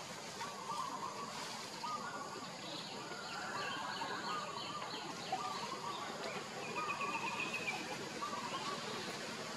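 Forest ambience: a steady hiss with short chirping calls repeating throughout, and a brief high trill about seven seconds in.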